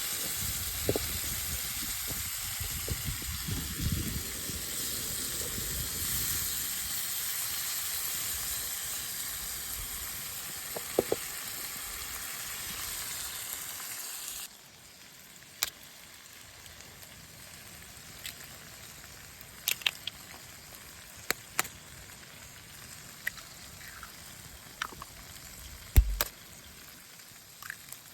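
Food frying in a pan over a campfire: a steady loud sizzle that drops suddenly about halfway to a quieter sizzle, with scattered sharp pops and crackles.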